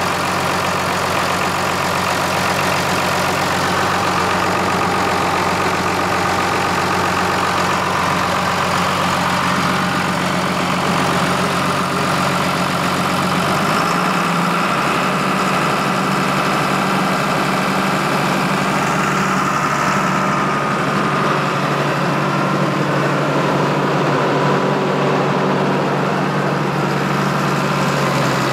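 John Deere 6068 inline six-cylinder diesel idling steadily, an engine with heavy crankcase blowby. The low hum of the engine changes about halfway through, then holds steady again.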